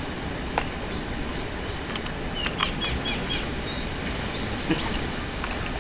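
A bird chirping a short run of about five quick high notes a little past the middle, with one more note a second later, over steady outdoor background noise.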